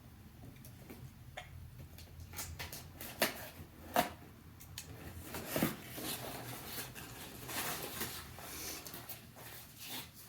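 A cardboard subscription box and its paper contents being handled and opened: soft rustling with scattered taps and clicks, and two sharper knocks about three and four seconds in.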